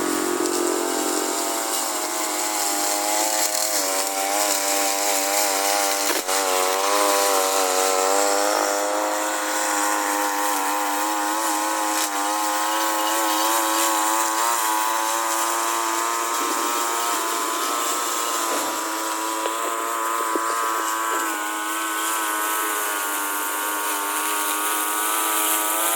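Push lawn mower engine running steadily while mowing grass, its pitch wavering slightly as the load changes, with one short sharp click about six seconds in.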